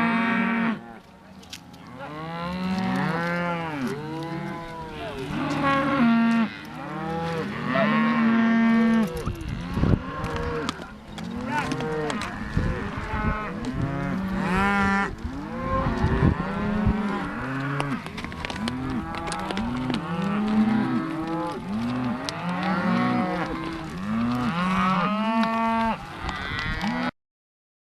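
A herd of cattle mooing, many overlapping calls one after another; the sound cuts off suddenly near the end.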